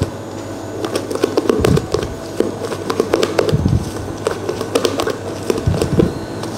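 Hand-stirring sponge cake batter in a mixing bowl: irregular clicks, taps and scrapes of the utensil against the bowl, with a few low knocks.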